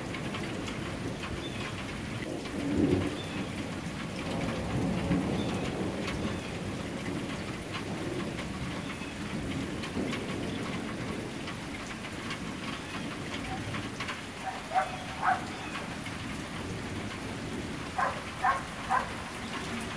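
Steady rain falling during a flash flood, a continuous hiss with a low rumble beneath it. Several short high calls come through in the second half, two near the middle and three near the end.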